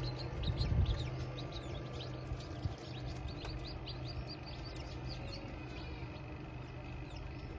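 Many chicks peeping at once: a dense stream of short, falling peeps, over a steady low hum.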